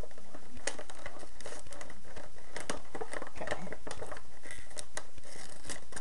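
Toy box packaging being opened and handled: irregular crinkling, rustling and small clicks of cardboard and plastic, over a steady low hum.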